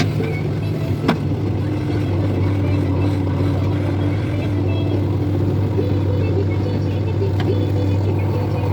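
Heavy diesel machinery engine running steadily under load, with a sharp knock about a second in.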